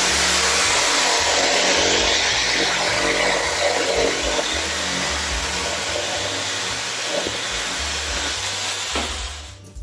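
Corded electric drill running steadily as its bit bores and reams out a hole in a plastic mount so an axle can pass through; the drill stops just before the end.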